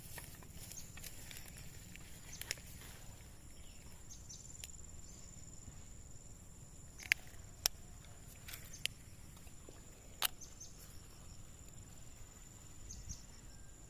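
Quiet outdoor ambience with a steady high-pitched insect drone. A handful of sharp clicks and taps come through, the loudest about seven and ten seconds in.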